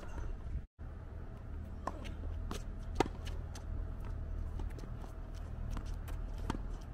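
Tennis ball struck by rackets and bouncing on a hard court during a rally: a run of sharp pops, the loudest about three seconds in, with shoe scuffs over a low steady rumble. The sound cuts out for a moment under a second in.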